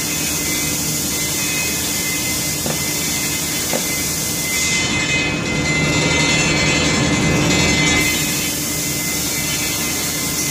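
Steady mechanical noise of an automated spray-painting booth: the extraction wall's fans and the spray equipment running, with a constant hum and a few steady whining tones. It grows louder from about five to eight seconds in.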